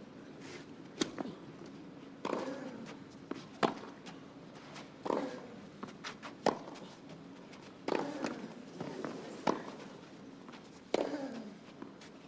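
Tennis rally on clay: the ball is struck by racquets eight times, about every one and a half seconds. Every other stroke comes with a short grunt that falls in pitch, from one player hitting the ball.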